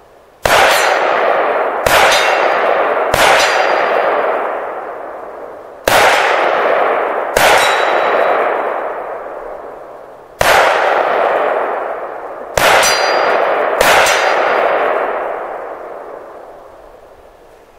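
Eight rifle shots at irregular spacing of one to three seconds, each followed by a long ringing clang from a hit steel target.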